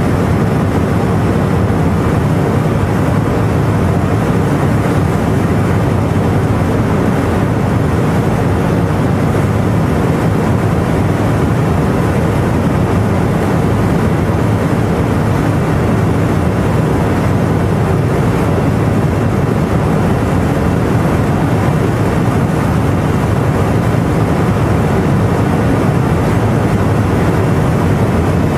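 Bugatti Veyron at full speed heard from inside the cabin: the quad-turbocharged W16 engine running flat out under heavy wind and tyre noise, loud and steady with no change in pitch.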